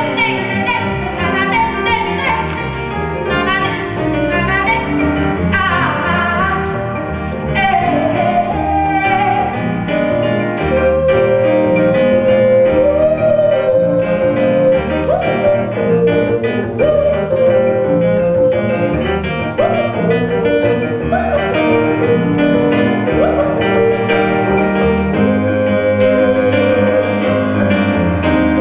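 Live jazz trio music: piano and double bass under a woman's voice singing long held notes that slide between pitches.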